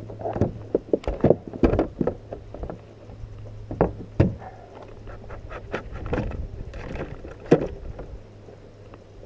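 Irregular knocks, bumps and clatter on a kayak, over a steady low hum.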